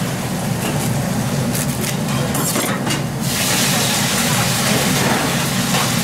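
Busy wok-kitchen noise: a steady roar from the gas wok station with light clinks of utensils in the first three seconds. The hiss grows brighter about three seconds in.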